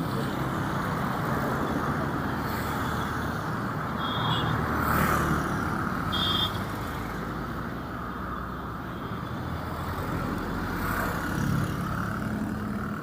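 City street traffic: vehicle engines running and cars passing, with two short high beeps about four and six seconds in.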